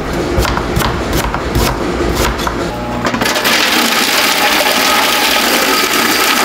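Cleaver chopping through ginger on a wooden board, a steady series of sharp chops about two to three a second. About three seconds in, an electric chopping machine with a stainless-steel drum starts and runs steadily, mincing the ginger.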